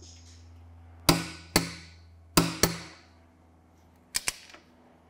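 Click-type torque wrench clicking out at its set 118 Nm on a crankshaft pulley bolt, showing the bolt has reached torque. Six sharp metallic clicks in three close pairs.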